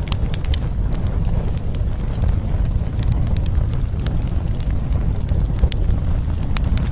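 Steady low wind-like rumble with irregular sharp crackling clicks scattered through it.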